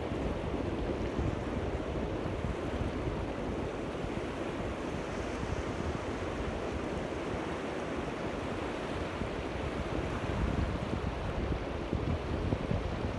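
Small sea waves washing steadily onto the shore, with wind rumbling on the microphone.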